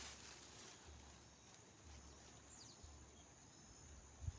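Near silence: faint outdoor ambience with a thin, steady high-pitched tone, and one soft low thump near the end.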